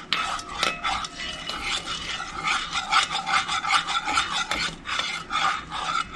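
A utensil scraping rapidly against a pan, stirring a thick brown sauce in quick strokes, about three a second.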